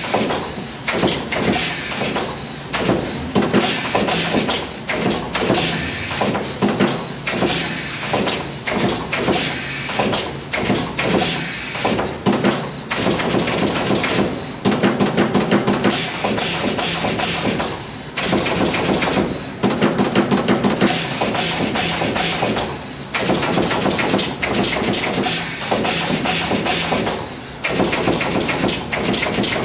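Automatic four-head pin inserting machine running, its insertion heads clacking as they press pins into a circuit board. The clicks and knocks come in a fast, dense stream, broken by a few short pauses.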